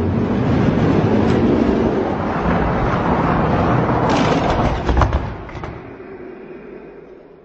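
Die-cast toy monster trucks rolling fast down a long orange plastic race track, a steady loud rumbling rattle of wheels on plastic. Between about four and five seconds in comes a quick clatter of clacks as they cross the finish gate and hit the end stop, then the rolling fades away.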